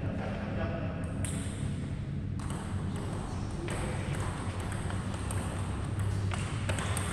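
Table tennis ball being played in a rally: sharp clicks as it strikes the paddles and the table, spaced irregularly about a second or so apart.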